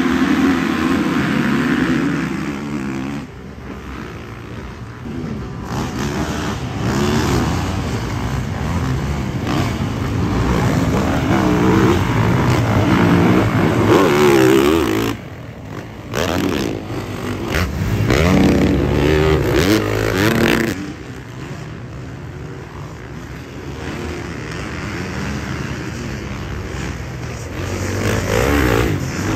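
Motocross dirt bikes racing, their engines revving up and down through corners and straights. The sound jumps abruptly a few times between clips.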